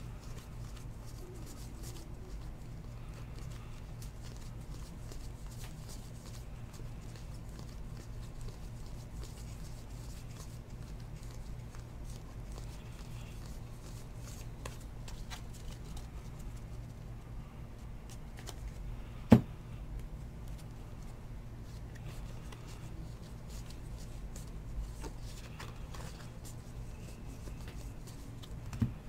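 Baseball trading cards being shuffled and slid against each other by hand, soft ticks and rustles over a steady low electrical hum. A single sharp click stands out about two-thirds of the way through, and a smaller one comes near the end.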